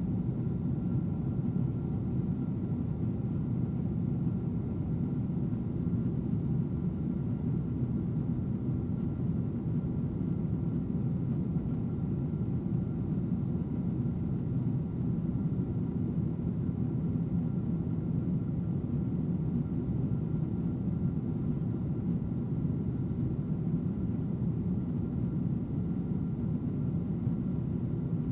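Steady rumble of an aircraft in flight, heard from inside the cabin, with a faint steady hum above it.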